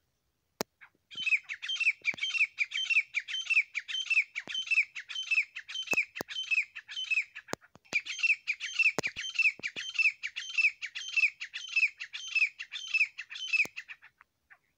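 Grey francolin calling: a fast, even run of loud, repeated high-pitched notes, about three a second, with a short break about eight seconds in, stopping about a second before the end.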